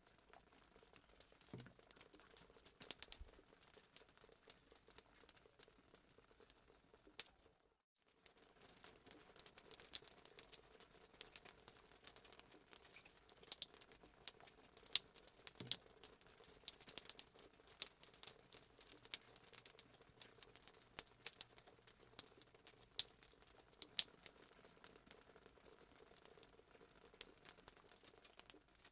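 Faint fireplace crackling sound effect: a steady patter of small pops and snaps. It cuts out for a moment about eight seconds in and comes back with the pops more frequent.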